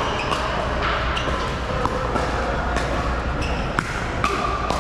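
Pickleball paddles striking the plastic ball in a quick exchange of sharp pops, about one every half second, each with a short ring, echoing in a large indoor hall over its steady hum.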